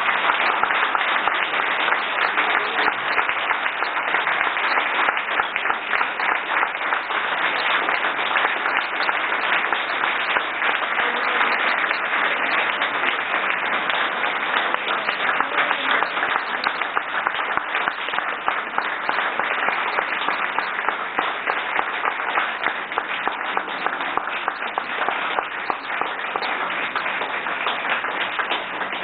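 An audience applauding: many hands clapping in a dense, steady patter that eases off slightly near the end.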